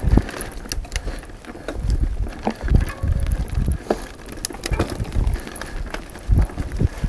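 Mountain bike riding fast down a dirt singletrack: tyres rumble unevenly over the bumpy trail, and the bike rattles and knocks with sharp clicks over roots and ruts.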